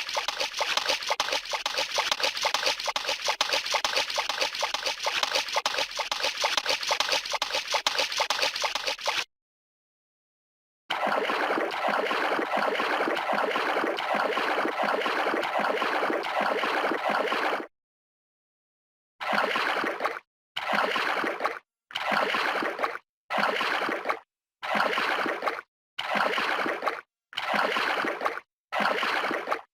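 Running and splashing water in three separate takes with short silences between: a steady bright rush of flowing water, then a lower, gurgling flow, then a series of short splashing strokes, each about a second long and repeating about every 1.2 s.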